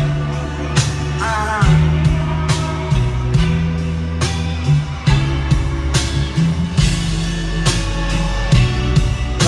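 Music with a heavy bass line and a steady beat, a little under one stroke a second, with a short sung phrase about one and a half seconds in.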